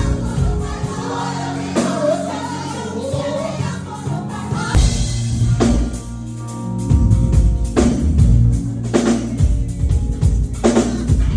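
Gospel music: voices singing over a band, then the drum kit comes in strongly about halfway through, with heavy hits recurring over the rest.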